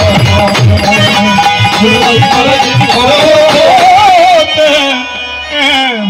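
Devotional kirtan music: deep khol drum strokes under a wavering melody. The drumming stops about four and a half seconds in, and the melody carries on alone.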